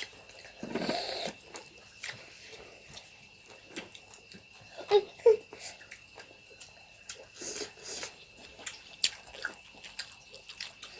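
Close-up eating of snail curry: chewing and wet mouth sounds, with many short, scattered clicks and a brief slurp about a second in.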